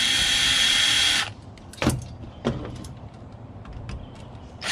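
Power drill running in a short burst to drive out a screw for just over a second, then stopping; a couple of sharp knocks and light clinks of small parts follow, and the drill starts up again near the end.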